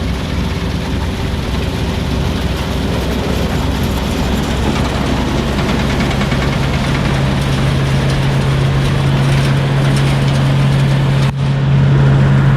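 Combine harvester running steadily while harvesting soybeans: engine and threshing machinery in a continuous drone. A steady hum comes in partway through and grows stronger, with a momentary break near the end.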